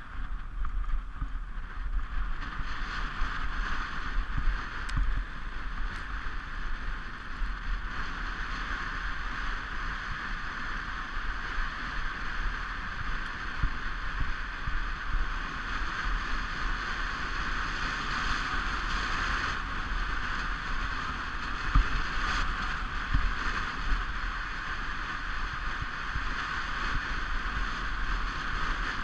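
Sports toboggan runners hissing steadily over the snow of a toboggan run, with low rumble and irregular knocks from bumps in the track. The sharpest knock comes about three-quarters of the way through.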